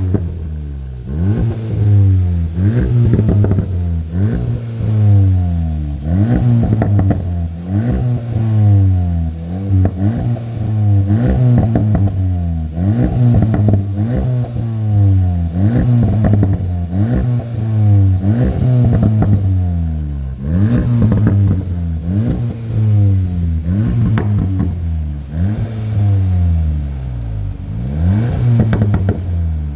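SEAT Leon Cupra 290's 2.0-litre turbocharged four-cylinder being blipped over and over, the revs rising and falling about every second and a half. Crackles and pops in the exhaust as the revs drop each time.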